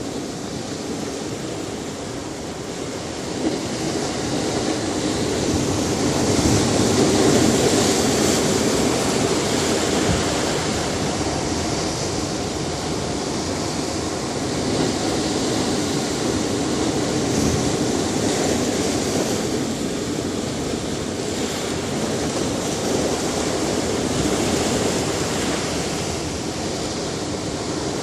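Ocean surf washing onto a beach: a steady rushing wash that swells to its loudest a few seconds in, then eases into slower, gentler rises and falls.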